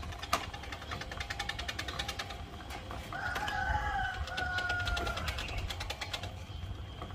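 Hamster exercise wheel spinning with rapid, even clicking as a hamster runs in it. About three seconds in, a rooster crows once, a long call falling slightly in pitch.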